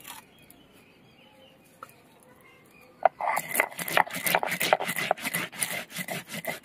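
Mustard seeds being ground on a flat stone grinding slab (shil) with a stone roller (nora): from about three seconds in, a quick run of gritty rasping strokes as the roller is worked back and forth over the seeds.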